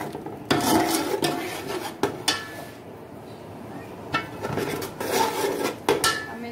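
Perforated metal spatula scraping and stirring a tomato masala in an aluminium pot, in several short strokes with faint metallic ringing.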